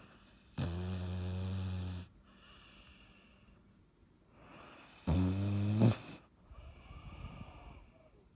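A sleeping pet snoring: two loud, low snores about four seconds apart, each lasting about a second, with softer breaths between them and after the second.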